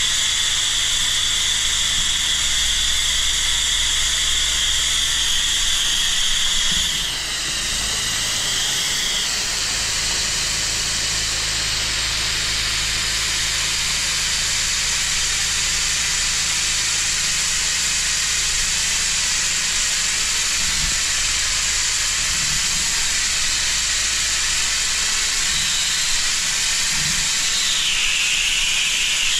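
Pressure-washer lance spraying a wide fan of liquid onto block paving: a steady hiss of spray over a low, even hum. The hiss changes in pitch about seven seconds in and shifts again near the end.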